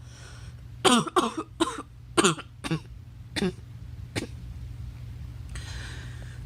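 A girl coughing in a fit: about seven short coughs in quick succession in the first four seconds, the later ones weaker.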